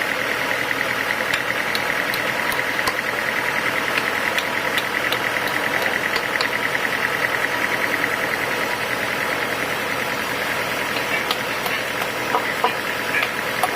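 Sawmill machinery running steadily with a fast, even pulsing, with scattered light clicks and knocks.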